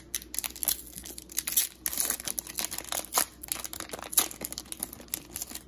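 Plastic-foil hockey card pack wrapper crinkling and tearing as it is torn open by hand, a dense run of irregular crackles with one sharper, louder crackle about four seconds in.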